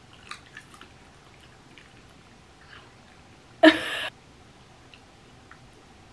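A miniature dachshund licking and nibbling at a freeze-dried treat held in a hand: faint wet clicks, mostly in the first second. About three and a half seconds in, a woman gives a short, loud laugh.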